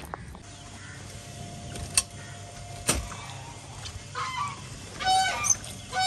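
Geese honking: a few calls about four seconds in, louder near the end. Before them come two sharp knocks about a second apart.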